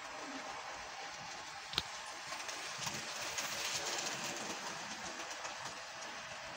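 Model train cars rolling past close by on the layout's track, wheels clicking and rattling over the rail. The sound builds from about two seconds in, is loudest around three to four seconds as the cars pass, then fades. A single sharp click comes just before the rolling sound builds.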